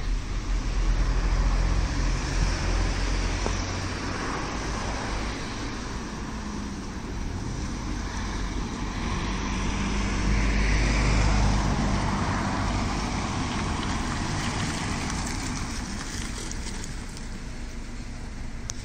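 Road traffic: cars passing, over a steady low engine hum, louder about a second in and again around the middle.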